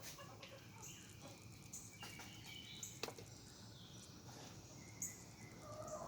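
Faint bird calls and chicken clucks, with short high chirps about once a second and a few light clicks.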